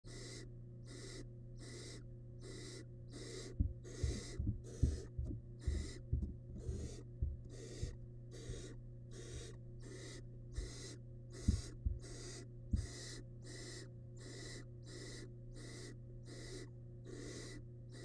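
Barn owl nestlings giving their begging calls: a long run of rasping hisses, about two a second, the hunger call chicks make to be fed. A cluster of low thumps and knocks sounds in the first part, over a steady low hum.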